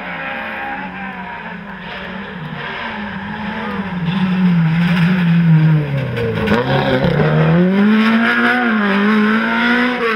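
Ford Escort Mk2 rally car engine under hard driving, its pitch sinking to a low point about six to seven seconds in and then climbing again as it revs back up. It gets louder from about four seconds in.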